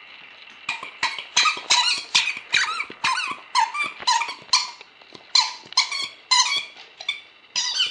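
Rubber squeaker ball from inside a chewed-up plush toy, squeaked over and over as a dog chomps on it: several short squeaks a second, starting about a second in, with a brief pause about five seconds in.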